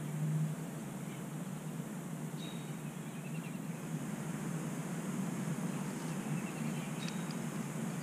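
Steady outdoor background noise with a low hum, and a few faint, brief high chirps scattered through it.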